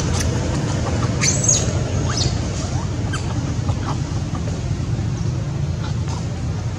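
Several short, high-pitched animal squeaks, most of them in the first three seconds, over a steady low background rumble.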